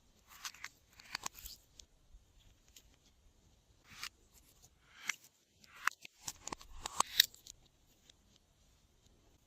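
Glossy slime being squeezed, stretched and mixed by hand: irregular sticky clicks and short wet crackles, coming in clusters and busiest a little past the middle.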